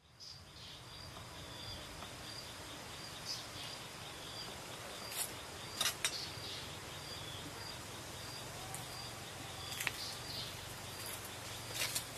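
Outdoor ambience: an insect's steady, high-pitched pulsing trill over a low hum, with a few sharp clicks, the loudest pair a little before the middle.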